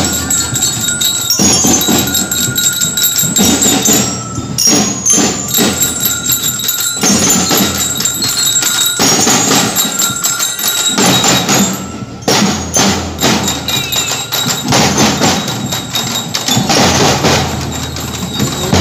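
Drum and lyre marching band playing: metal bell-lyres ring a melody over snare and bass drum beats.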